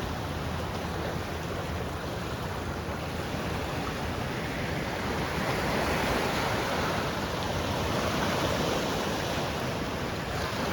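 Ocean surf washing against a rocky shore, with wind on the microphone; the wash swells louder about halfway through and eases off near the end.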